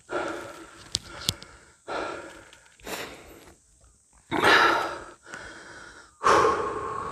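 A hiker's heavy breathing close to the microphone: about five deep, noisy breaths, each swelling and fading, the loudest near the middle and near the end, with two small clicks about a second in.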